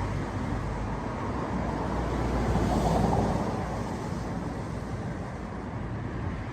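Road traffic on a busy main road: a steady rush of passing cars, swelling as a vehicle goes by about halfway through, then easing.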